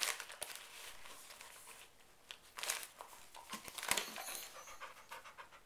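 Dog nosing and pawing at a foil-wrapped gift, the wrapping paper crinkling in short bursts; from about four seconds in the dog pants quickly and evenly.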